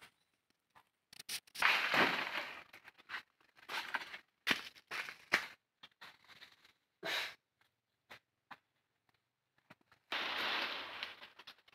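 Rustling and crackling of dry leaves and branches in irregular bursts, the longest about two seconds in and again near the end, with quiet gaps between.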